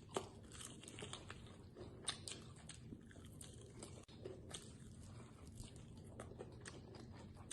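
Faint crunching and chewing of deep-fried, Hot Cheeto-crusted frog legs, a string of short, irregular crunches and clicks.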